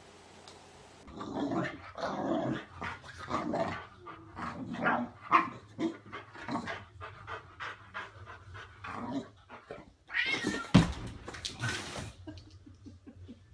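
A small dog and a cat calling at each other in a string of short pitched cries for several seconds, then a loud noisy rush lasting about two seconds near the end.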